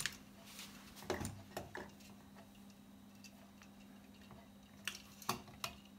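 Scattered light clicks and knocks of the plastic fan frames and zip ties against the hooks and cabinet wall as a row of computer fans is hooked into place: a few in the first two seconds, a cluster near the end. A faint steady hum sits underneath.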